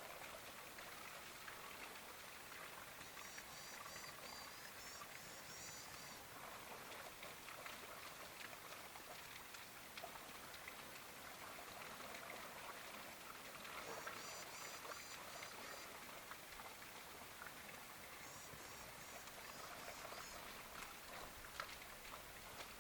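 Faint outdoor ambience: a steady hiss like light rain or running water, with a few short runs of high, rapidly repeated chirps, near the start, about halfway and near the end.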